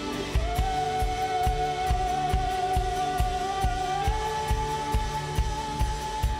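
Live band music: a drum kit keeping a steady beat under bass, keyboard and guitars, with one long held note over the top that steps up slightly about four seconds in.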